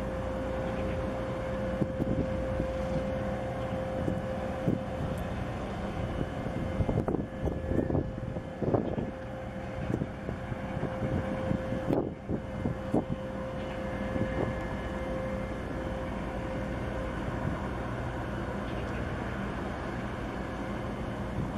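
Distant low, steady rumble of an old refrigerated cargo ship's diesel engine under way, with a steady mid-pitched hum over it that fades out about three-quarters of the way through. A scatter of knocks and clicks comes in the middle.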